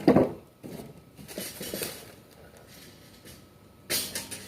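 A knock, then intermittent rustling and light clattering of objects being handled, with a sharp crinkly rustle near the end.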